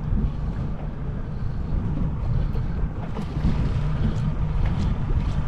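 Boat engine running steadily as a low rumble, with wind buffeting the microphone.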